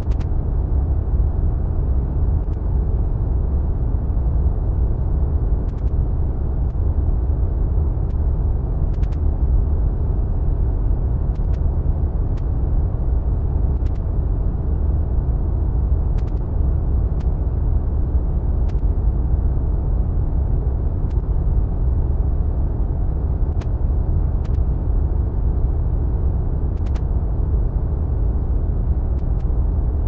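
Wind sound effect: a steady, deep rushing of wind, heaviest in the low end, with a few faint sharp ticks scattered through it.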